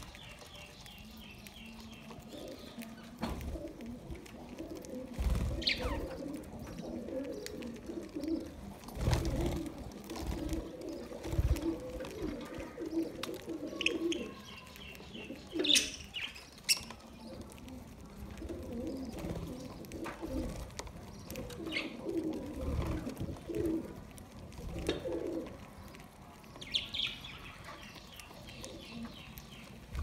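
A flock of budgerigars feeding together: short bursts of high chirping and chatter over a lower, repeated pulsing call, with scattered sharp clicks and a few low thumps.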